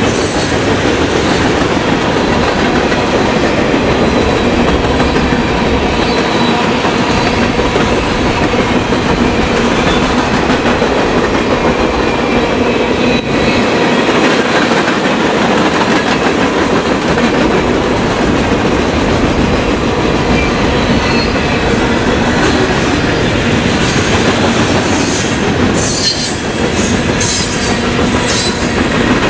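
Freight cars of a CSX freight train rolling past close by: a steady loud rumble of steel wheels on rail with clickety-clack over the rail joints. Faint steady wheel-squeal tones run under it, and there are a few sharp clacks near the end.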